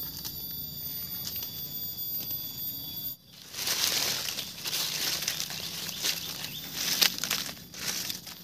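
Steady high-pitched insect trilling for about three seconds, then, after an abrupt break, rustling and crinkling with scattered light knocks.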